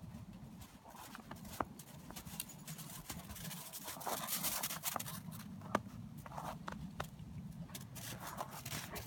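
Footsteps crunching in snow, irregular crunches and sharp clicks as the person filming and the dogs walk.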